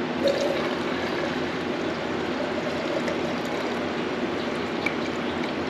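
Black paint thinned with acetone pouring steadily from a mixing cup into a spray gun's plastic gravity-feed cup, over the steady noise of running fans.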